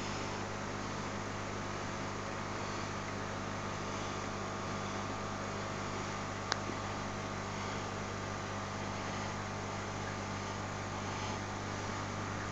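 Aquarium equipment humming steadily: a low mains hum under an even hiss, with one short click about six and a half seconds in.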